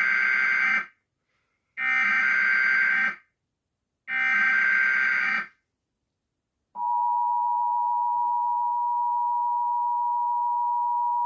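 Emergency Alert System tornado-warning tones: three short bursts of the buzzy SAME digital data header, each about a second and a half long with a pause between, then after a gap the steady two-tone EAS attention signal starts about seven seconds in and holds.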